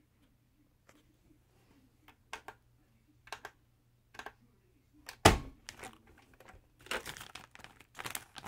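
A FoodSaver vacuum sealer being handled: a few light clicks as its buttons are pressed, a sharp knock about five seconds in as the lid is opened, then the plastic vacuum bag crinkling.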